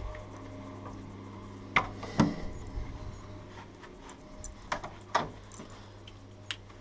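A few sharp clicks and knocks as a door with a metal latch is opened and pushed through, over a low steady hum. The loudest knocks come about two seconds in, with more near the middle and one near the end.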